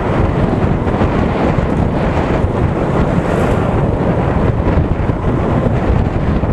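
Steady wind buffeting on the microphone of a camera riding on a motorcycle at road speed, an even rush with no distinct events.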